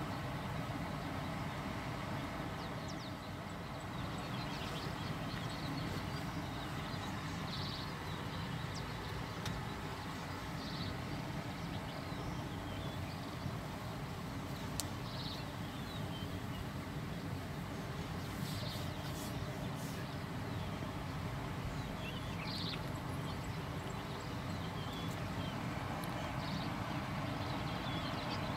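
Steady rush of the Mara river's rapids, with short high bird calls every few seconds.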